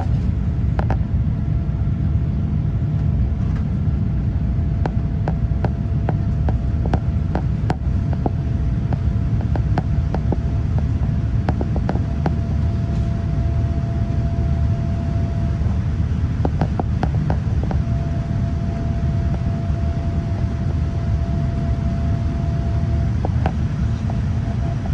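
Cabin noise of a Boeing 787-9 airliner in flight: a steady, loud low rumble of engines and airflow. Scattered light clicks and rattles run through it, over a faint steady whine.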